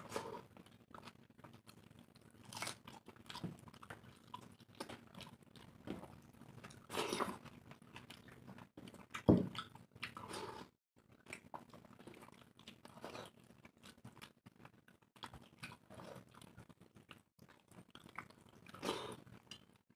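Two people eating dal khichdi with their hands: irregular chewing and mouth sounds, with fingers mashing soft rice and lentils on steel plates. The loudest sound comes about halfway through.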